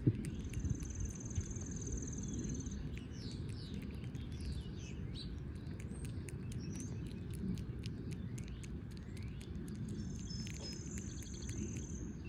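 Birds singing outdoors over a steady low rumble: a long, even, high trill near the start and another near the end, with scattered short chirps between. Faint rapid clicks run underneath, the small squirrel gnawing the fruit it holds close to the microphone.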